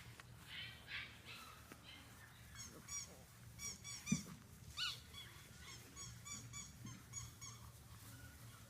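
Labrador puppies squeaking and yipping as they play, in quick runs of short, high chirping calls, with a single light knock about four seconds in.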